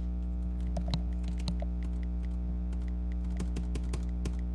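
Irregular clicking and tapping at a computer, a few clicks a second, over a steady low electrical hum.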